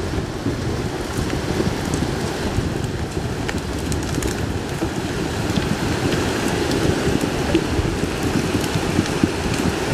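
Head of a debris-laden flash flood moving down a sandy wash: a steady, dense rushing and crackling of water, mud, branches and logs, with a few faint clicks scattered through it.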